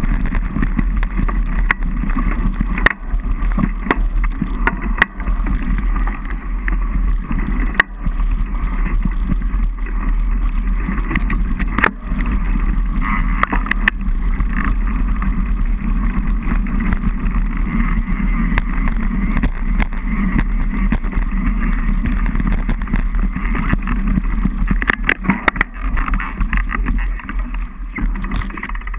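Wind rushing over an action camera and mountain bike tyres rolling over a dirt trail, a steady rumble broken by sharp knocks and rattles as the bike goes over bumps.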